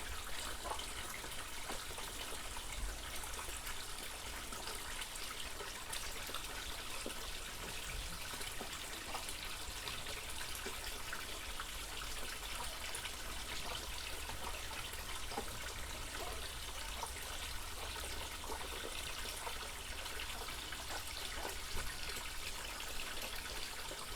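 Water trickling steadily, with a few faint ticks.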